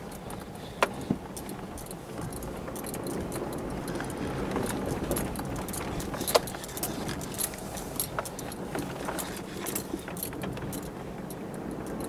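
Vehicle running and rolling slowly over snowy, uneven ground, heard from inside the cab, with many small irregular clicks and rattles that come more often in the second half.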